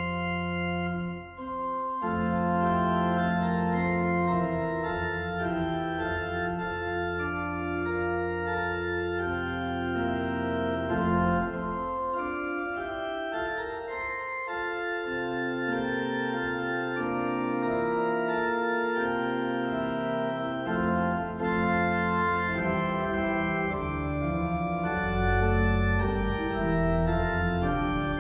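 Electronic organ playing a hymn in sustained chords over a pedal bass line played with the feet on the pedalboard. The deep pedal notes drop out for a few seconds about halfway, then come back, heaviest near the end.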